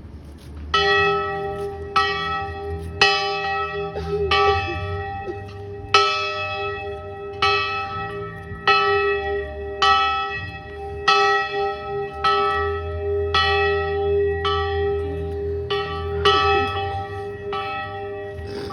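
A single large bell rung over and over, about one stroke a second, each stroke on the same note and ringing on into the next.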